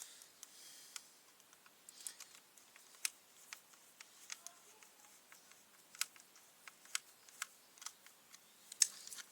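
Faint, scattered small clicks and taps, about a dozen spread over several seconds, from a bolt and the metal handle clamp being worked loose on a brush cutter's shaft.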